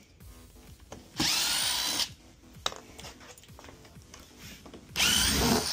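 DeWalt cordless drill run in two short bursts, each under a second and about four seconds apart, backing screws out of a wooden shipping crate.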